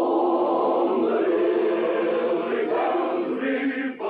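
A choir chanting in long, held notes that shift pitch a few times, with a brief dip near the end.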